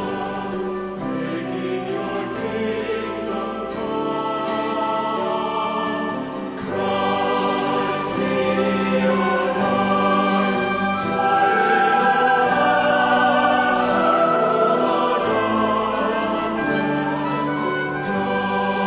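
Choral music: a choir singing slow, held chords, growing louder about halfway through.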